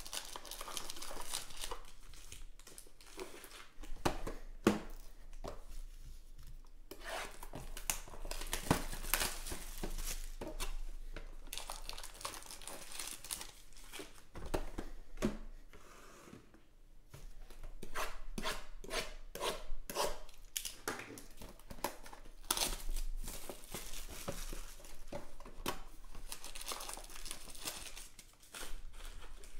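Plastic wrapping and trading-card packs crinkling and tearing as a cardboard box of card packs is unwrapped and emptied by hand, with irregular clicks and taps as packs are handled and set down.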